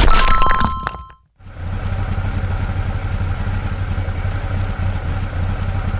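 A short ringing chime that dies away within the first second, then a heavy machine's engine starting up about a second and a half in and running steadily.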